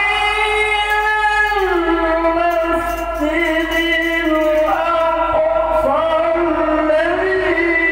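Male Quran reciter (qari) chanting in the melodic tilawah style into a handheld microphone, one long-breathed phrase of held notes that slide between pitches, dropping lower about two seconds in and rising again near the end.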